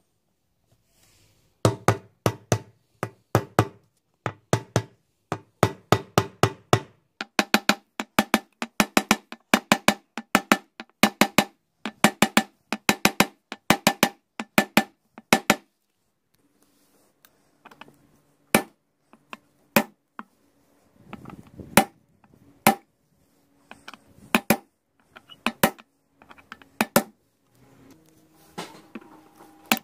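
Hammer tapping a new ball bearing into the bearing seat of a washing machine drum: quick metallic strikes, several a second, each with a short ringing note, for about the first fifteen seconds, then slower, spaced-out taps.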